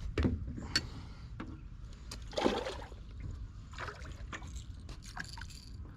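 Water splashing and sloshing at the side of a kayak as a small hooked bass is brought in, with scattered knocks and clicks; the loudest splash comes about two and a half seconds in.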